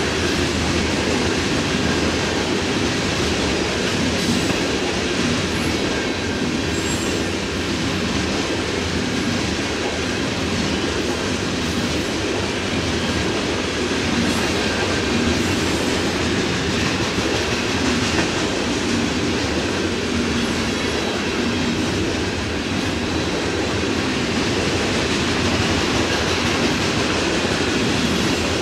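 Loaded covered hopper cars of a grain train rolling past at speed: a steady rumble of wheels on the rails that holds at one level throughout.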